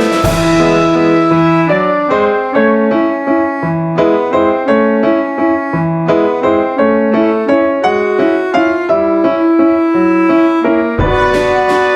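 Background music: a piano playing a melody of quick, separate notes, growing fuller and louder near the end.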